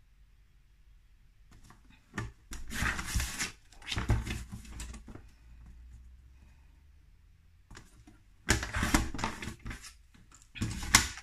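Tonic paper trimmer's blade carriage sliding along its rail, cutting cardstock, in four short scraping bursts: two in the first half and two more near the end.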